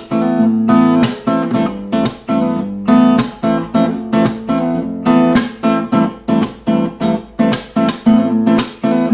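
Faith steel-string acoustic guitar played fingerstyle: plucked block chords in a loose, rhythmic pattern, each chord with a sharp attack, built on an A minor shape over changing bass notes.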